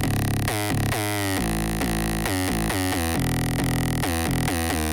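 Background music: an electronic intro of synthesizer notes that slide down in pitch, repeating in a steady rhythm.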